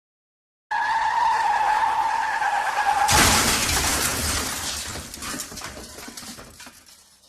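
Car tyre screech sound effect, a held squeal that drops slightly in pitch, cut off by a crash: a sudden loud impact followed by clattering debris that fades away over a few seconds.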